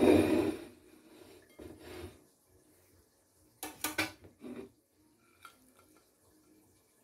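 A metal serving utensil scraping a roasting tray, then clinking sharply against a ceramic plate a few times as a piece of roast chicken is set down. The scrape comes right at the start, a softer one follows about two seconds in, and the clinks come about three and a half to four and a half seconds in.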